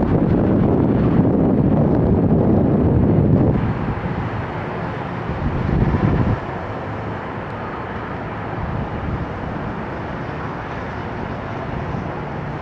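Jet engine noise from a three-engine McDonnell Douglas MD-10 freighter landing. It is loud for the first three and a half seconds, then drops, swells briefly around six seconds, and settles into a lower steady rumble.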